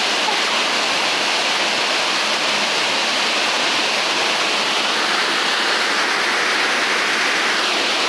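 Waterfall pouring into a rock-walled plunge pool: a steady rush of water.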